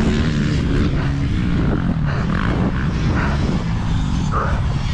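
Dirt bike engine running under way with a slowly wavering pitch, over a steady rush of wind and dirt noise.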